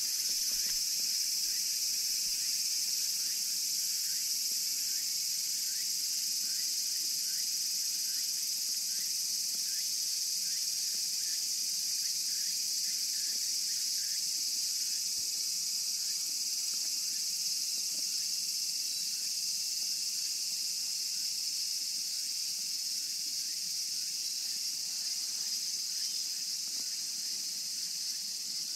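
Steady, high-pitched insect chorus shrilling without a break, with fainter short chirps repeating about twice a second through the first half.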